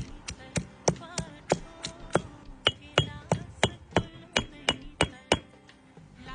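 Rhythmic knocking: a steady run of sharp strikes, about three a second, that stops about a second before the end, over soft background music.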